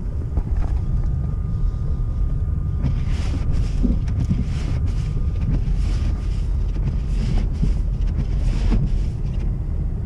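Inside a car driving on a snow-covered road: steady low rumble of the engine and tyres, with a run of short hissing swishes from about three seconds in until near the end.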